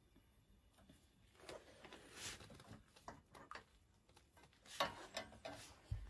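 Silicone spatula stirring milk in a small stainless steel saucepan: faint scrapes and irregular light taps against the pot, starting a second or two in, with the loudest taps near the end.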